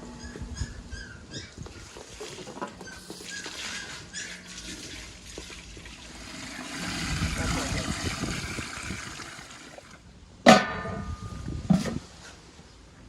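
Water pouring or running, swelling and then easing off, followed by two short, loud pitched calls near the end.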